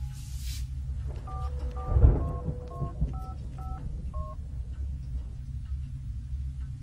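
Telephone keypad tones as a number is dialled: about seven two-note beeps, roughly half a second apart, over a low rumbling drone. A dull thump comes about two seconds in.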